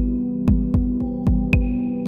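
Ambient electronic music played on analog synthesizers: a sustained low synth drone with a thin high tone above it, driven by a steady beat of deep kick-drum hits with clicking percussion.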